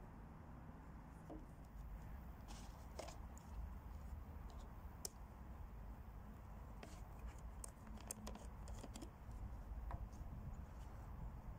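Faint light clicks and scrapes of hands handling things on a wooden table: horse chestnuts set down, then the plastic screw cap of a vacuum flask being twisted off, with a cluster of clicks a little past the middle. A low steady rumble runs underneath.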